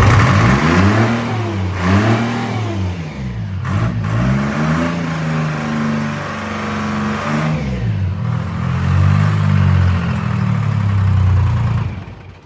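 Detroit Diesel 4-71 two-stroke four-cylinder with its blower, running just after a cold start following years of sitting, revved up and down several times and held at speed. It is shut off near the end.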